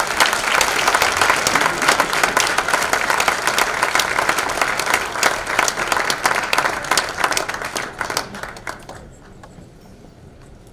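Audience applauding after a speech, a dense patter of many hands clapping that dies away near the end.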